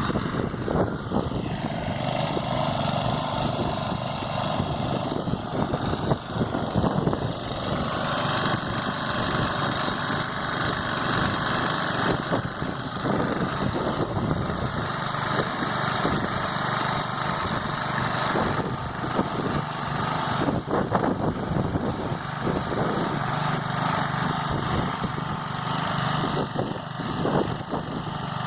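Small Briggs & Stratton engine on a John Deere 5B sprayer running steadily and driving the pump, with water spray hissing that grows and fades as the wand is worked.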